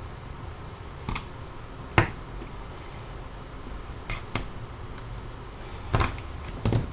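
Sharp clicks and snaps as a metal spudger pries around the edges of a Samsung Galaxy Tab 2's case. About six of them are spread out, and the loudest comes about two seconds in.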